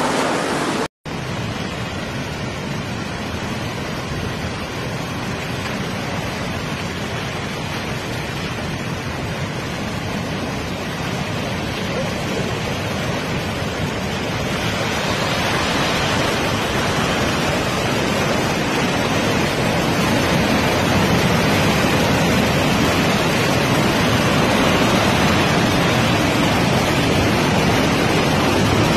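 Floodwater rushing in a fast, turbulent torrent: a loud, steady noise of water that grows louder about halfway through. A brief dropout about a second in.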